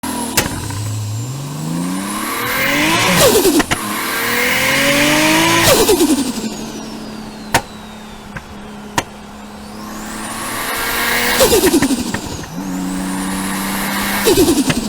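Nissan R34 Skyline GT-R's RB26DETT twin-turbo straight-six revved up four times. Each rev ends in a rapid fluttering chatter as the throttle closes: turbo flutter (compressor surge). The engine idles between revs, and a few sharp cracks stand out.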